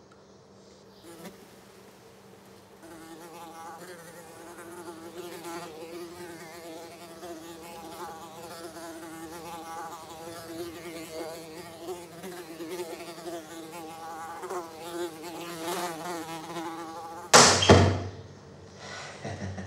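A fly buzzing, its pitch wavering up and down as it flies about. Near the end come two loud slaps in quick succession.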